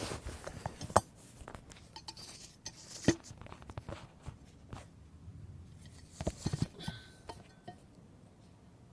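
Small metal lock and handle parts clicking and clinking as they are handled and worked loose, with sharp knocks about one second and three seconds in and a quick cluster of clicks around six seconds in.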